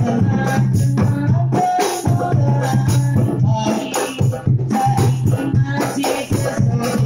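Hadroh rebana ensemble playing a steady rhythm: hand-struck frame drums, a deep bass drum and a bright jingling shimmer, with a pitched melody line over them.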